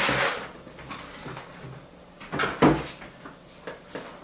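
Handling noise from a bicycle helmet being picked up and moved about: rustling and small knocks, with one clunk about two and a half seconds in.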